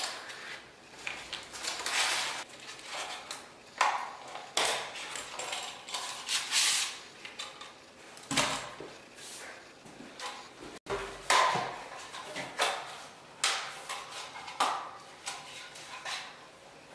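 Hands fitting a sanding block onto its pole handle: irregular clicks, light metallic clinks and rubbing from the block, its metal fitting and the wooden bench.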